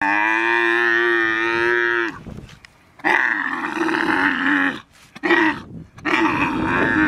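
Camel in labour bellowing loudly during an assisted birth: one long, steady call of about two seconds, then, after a short pause, several shorter calls.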